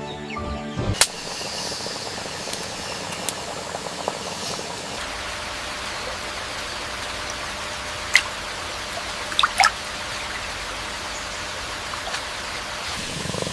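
River water flowing steadily, with a few short sharp splashes or clicks about eight and nine and a half seconds in.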